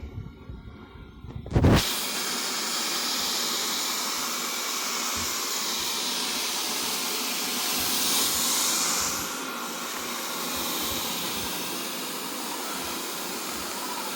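Wyze robot vacuum running with a steady hiss from its suction fan as it drives back to its charging dock. The hiss starts abruptly about two seconds in and swells briefly around the middle.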